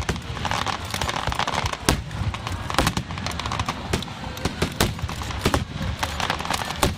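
Fireworks going off in quick succession: sharp bangs of exploding shells, several a second at irregular spacing, over a continuous crackle.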